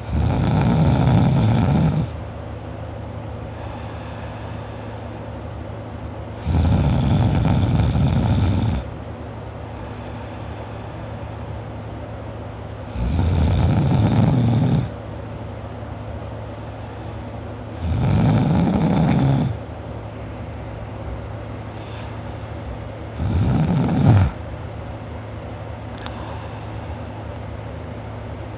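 A person snoring in sleep: five loud snores, each lasting one to two seconds and coming every five to six seconds, with a steady low hum in the gaps between them.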